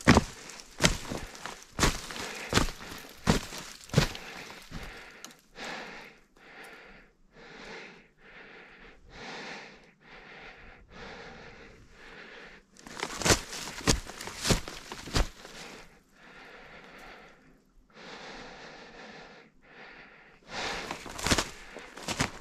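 A person walking on the woodland floor, footsteps about two every 1.5 s, in three short bursts: at the start, near the middle and at the end. Between the bursts he stands still, breathing audibly close to the microphone.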